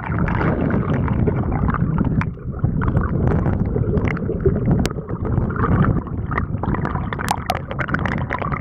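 Rushing, gurgling river water in shallow rapids, with wind buffeting the microphone and a few sharp clicks.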